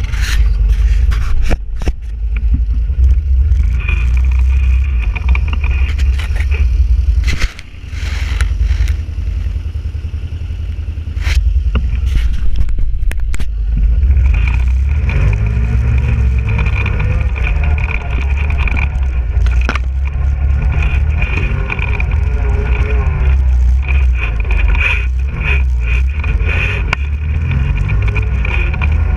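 ATV engine running under throttle over a rough, muddy trail, with a deep rumble of wind on the microphone, a steady high whine, and scattered knocks from bumps. The throttle eases off briefly about a quarter of the way in, and the revs rise and fall in the second half.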